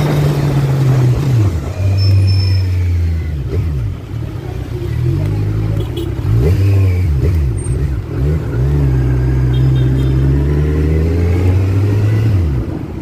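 Kawasaki Z1000's inline-four engine running under way in city traffic, with wind and road noise. The revs drop about a second and a half in, swing up and down several times in the middle, hold steady for a few seconds, then fall again near the end.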